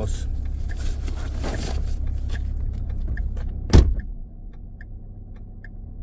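Rustling as a backpack is set on a car seat over a steady low rumble, then a car door slammed shut a little under four seconds in, the loudest sound. After it only a fainter low hum is left inside the closed car.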